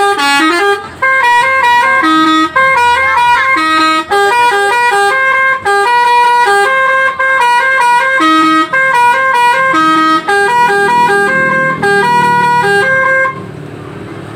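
Alzifa Airhorn V2.0 telolet bus air horn playing a multi-note melody in held, stepped tones, with short breaks between phrases. It stops about 13 seconds in.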